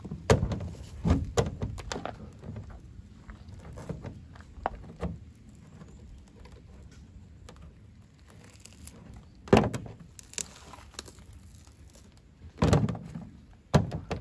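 A durian's spiky husk being pried and split open with a small knife: a series of sharp thunks and cracks, with the loudest about ten seconds in and twice near the end, as the blade works into the seams and the shell breaks apart against a plastic truck bed liner.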